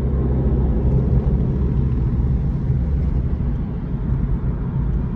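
Steady low rumble of a moving car's engine and tyres on the road, heard from inside the cabin, with a steady hum in it.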